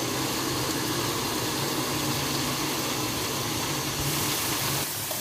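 Steady hiss with a low hum in a kitchen; about four seconds in a brighter hiss joins as a breadcrumb-coated potato slice goes into hot oil and starts to sizzle.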